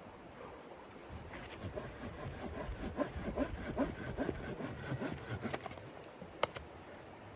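Wood being sawn by hand: a run of quick, rhythmic saw strokes lasting a few seconds, then a single sharp click near the end.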